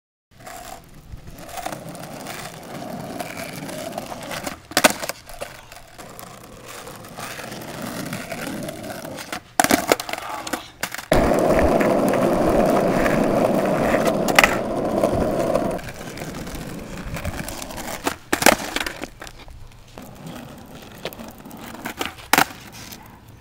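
Skateboard wheels rolling on asphalt, with a loud close pass in the middle. Sharp clacks of the tail popping and the board landing come about five times, spread through, as the skater does heelflips while rolling.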